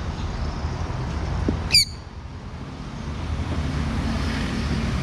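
A sun conure gives one short, shrill squawk a little under two seconds in, over a steady low rumble of road traffic.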